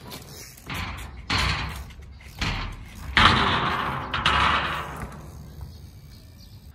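Trials bicycle being ridden and hopped: rough scraping thuds in four bursts, the longest and loudest about three seconds in, fading over nearly two seconds.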